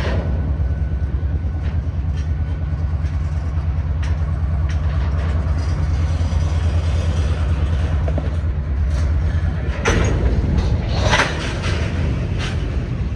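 Freight train moving along the track: a steady low rumble with scattered sharp clicks and clanks from the cars, growing louder and noisier about ten seconds in.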